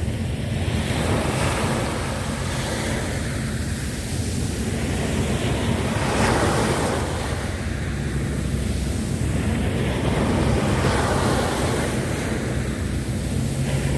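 Sea waves breaking and washing on the shore, swelling and easing every few seconds, with wind buffeting the microphone and a steady low rumble underneath.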